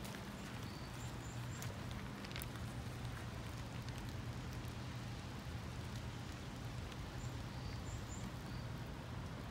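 Outdoor ambience: an even hiss over a steady low hum, with a few scattered light ticks and faint, short, high bird chirps in small clusters near the start and again near the end.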